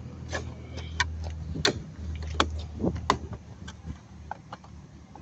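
A string of sharp plastic clicks and taps as hands fit and press together a car's electric side-mirror glass and plastic housing. A low steady hum runs underneath and stops about three and a half seconds in.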